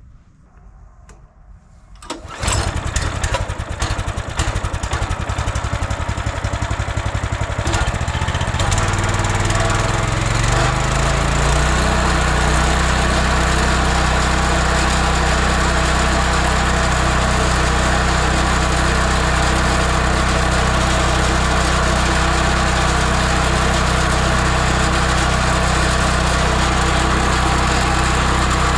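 Stump grinder's 420 cc, 15 hp petrol engine starting about two seconds in, then speeding up over a few seconds to a steady, loud high-speed run.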